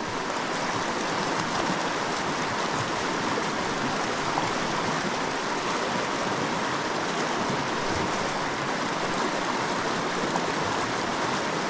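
Creek water rushing steadily over a riffle.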